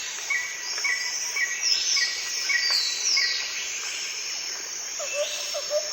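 Birds calling over a steady insect hiss: a short high note repeated about twice a second, a few falling whistles, then a lower chirp repeated quickly near the end.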